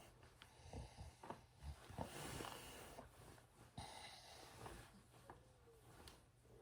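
A sleeping person snoring softly: faint noisy breaths in and out, with small snorts and clicks in between.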